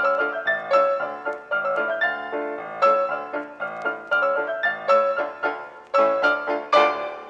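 Background piano music: a melody of struck notes, several a second.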